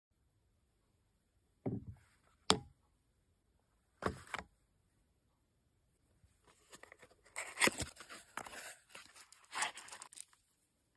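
Colt M1911A1 pistol being handled: a knock, a sharp metallic click, another click, then a busy run of clicking and rattling metal parts.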